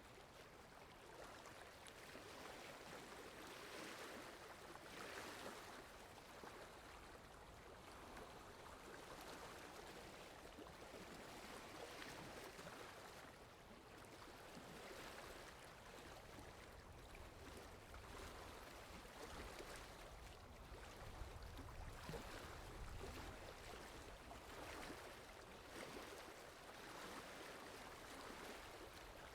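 Faint water lapping against a shore, a soft wash that swells and fades in uneven waves every few seconds. A faint low rumble joins for several seconds midway.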